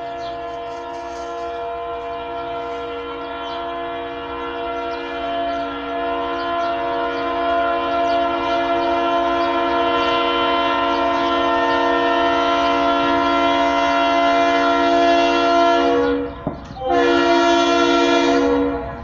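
Diesel locomotive's multi-chime air horn sounding one long chord that grows louder over about 16 seconds, then, after a short break, a second blast of about two seconds.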